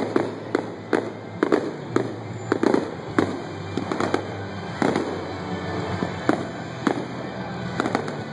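Aerial fireworks bursting in an irregular run of sharp booms, about two or three a second, each with a short echo.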